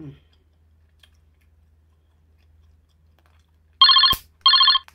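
Telephone ringing: two short, loud trilling electronic rings near the end, with a sharp click between them.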